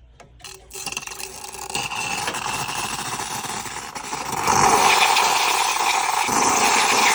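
Rancilio Silvia espresso machine's steam wand hissing steadily after a couple of clicks, getting louder about four and a half seconds in.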